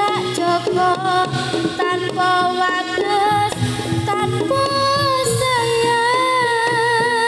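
Live jaranan gamelan music: a wavering lead melody line held over a steady beat of drums and struck percussion.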